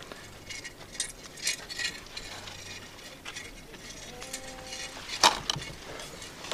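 Scattered light clicks and taps of small objects being handled, with one sharper click about five seconds in.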